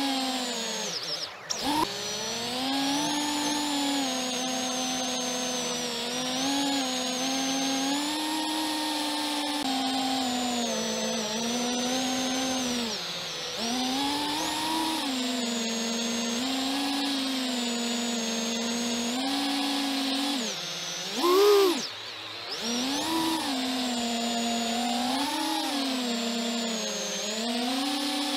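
FPV quadcopter's brushless motors and propellers whining, the pitch rising and falling with the throttle. It drops off sharply about a second in and punches up to a loud, high surge about three-quarters of the way through.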